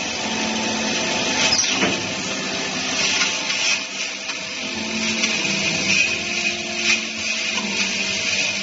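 Multi-spindle rotary drilling, tapping and milling machine running and cutting metal: a steady motor hum under a high hiss of cutting, with a few sharp clicks.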